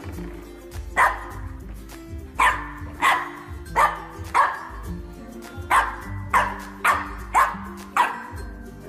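A dog barking repeatedly, about ten sharp barks spaced roughly half a second to a second apart, over background music.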